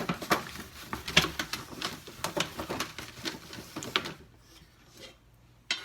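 Irregular light clicks and taps, several a second, for about four seconds, then dying down to quiet.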